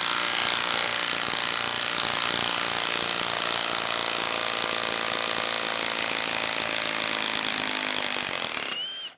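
Milwaukee M18 Fuel Stubby 1/2-inch cordless impact wrench hammering continuously in reverse, backing a lag screw out of a wooden stump. It stops suddenly about nine seconds in as the lag comes out.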